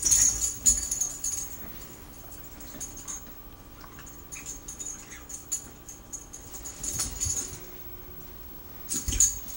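Dog collar tags jingling in bursts as a papillon and a miniature pinscher scuffle and play, with soft thumps of paws on the carpet.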